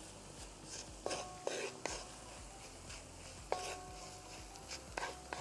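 Wooden spatula stirring and knocking against a cast iron wok, several sharp knocks with a brief metallic ring, over a faint sizzle of shallots and garlic frying in oil.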